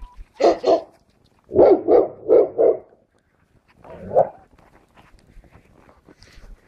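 Schapendoes dog barking in short groups: two barks, then a quick run of four, then a single bark.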